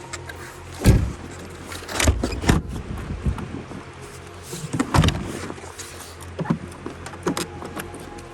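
Van driving, heard from inside: a steady engine and road hum broken by several heavy knocks and rattles, loudest about a second in and again around five seconds in.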